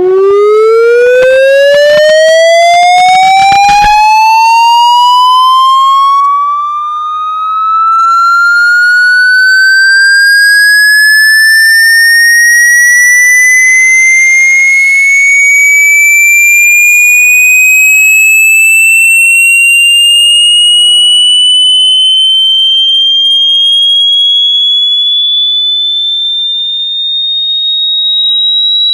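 A very loud single tone rising slowly and steadily in pitch, from low to high and shrill, like a siren winding up but never falling back. Crackling clicks sound over it in the first few seconds, and a burst of hiss about halfway through.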